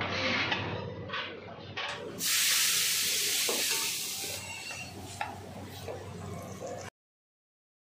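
Sizzling hiss from a hot dosa griddle. A loud burst starts about two seconds in and lasts a couple of seconds, amid light clatter of plates and utensils. The sound cuts off abruptly near the end.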